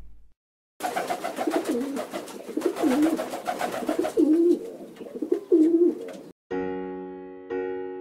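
Pigeons cooing, about four drawn-out, wavering coos over a few seconds, starting about a second in. Near the end they stop and electric piano music begins, with notes struck about once a second.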